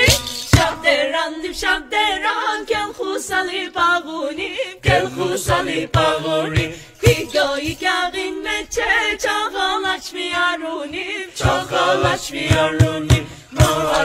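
Background music: a song with voices singing, over a drum beat that comes and goes.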